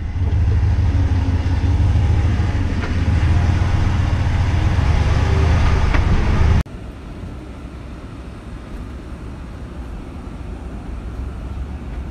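2019 Ram Rebel pickup driving off-road: a loud, steady low rumble of engine and tyres, which drops suddenly about six and a half seconds in to a much quieter, steady hum.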